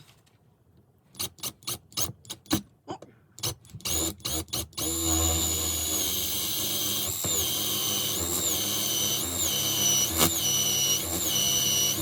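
A few clicks and knocks of handling, then from about five seconds in an impact driver fitted with a drill bit runs steadily, drilling out a hole for a rivnut. Its whine lifts briefly about once a second.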